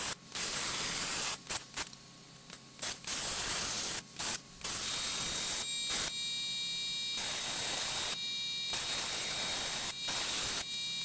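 Hypertherm plasma cutter hissing as it cuts through the steel frame horn of a car chassis, the arc stopping and restarting in repeated bursts, with longer unbroken cuts in the second half carrying a thin steady whine over the hiss.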